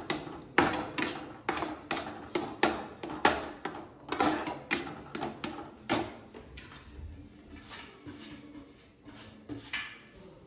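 Steel ladle knocking and scraping against a stainless steel kadai while thick kesari is stirred, about three strokes a second. The strokes turn fainter and sparser about six seconds in.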